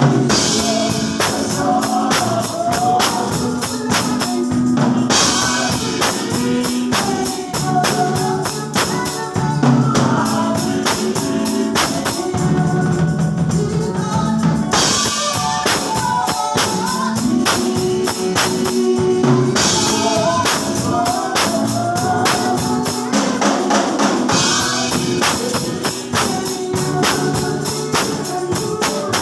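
Gospel praise music with a steady tambourine and drum kit beat under singing.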